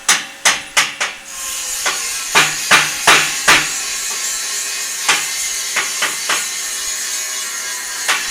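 Hammer blows on metal, about three a second for the first second, then scattered strikes over a steady hiss that sets in about a second in.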